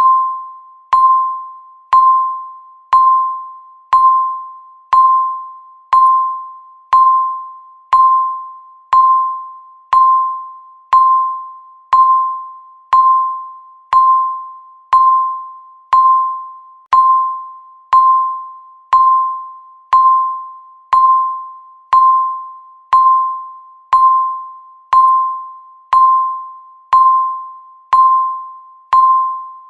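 Countdown timer beeping once a second, each beep a single steady tone that starts with a sharp click and fades away before the next.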